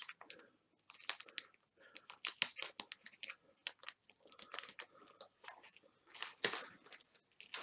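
Plastic comic-book poly bag crinkling and rustling as it is handled, with irregular crackles throughout.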